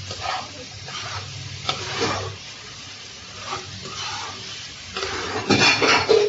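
Steel spatula stirring and scraping vegetable filling around a non-stick kadhai, with the food sizzling in the hot pan. The strokes come in quick, uneven scrapes and grow loudest near the end.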